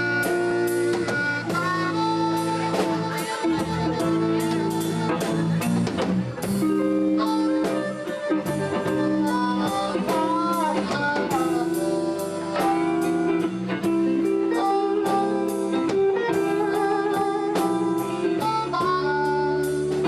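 Live blues band playing an instrumental break: drums keep a steady beat under held, bending lead notes and guitar.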